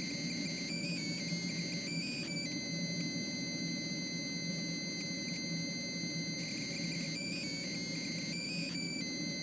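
Steady drone of a light aircraft in flight, heard through the cockpit intercom, with several high electrical whine tones that shift briefly a few times.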